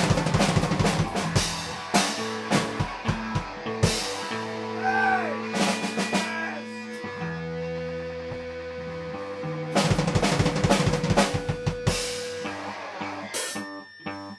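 Music: a track with a drum kit playing busy beats. Around the middle the drums mostly drop out, leaving held notes for a few seconds, then they come back in about ten seconds in before a thinner passage near the end.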